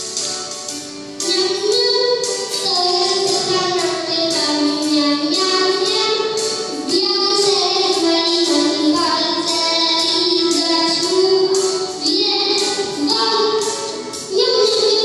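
A young child singing a song into a microphone over musical accompaniment.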